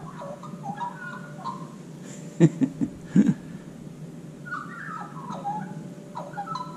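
Australian magpie warbling in gliding, fluting phrases, once near the start and again in the second half. A few brief sharp knocks come in the middle, louder than the song.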